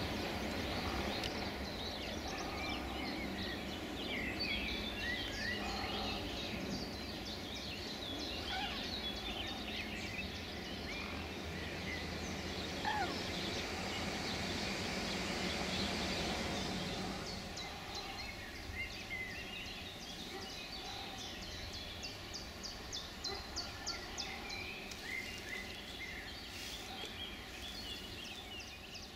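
Small birds chirping and singing over a steady low background noise at a lakeside. In the second half a fast run of high, regular ticking notes joins in.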